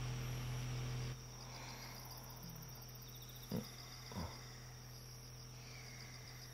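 Crickets chirping steadily in a night ambience, with an electric fan's low hum that cuts off about a second in. Two soft thumps come in the middle.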